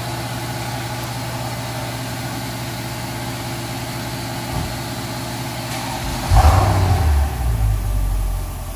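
Mercedes-Benz CL63 AMG V8 idling steadily through an exhaust with its resonators deleted, then revved once about six seconds in. The deep, louder rev lasts about two seconds before dropping back to idle.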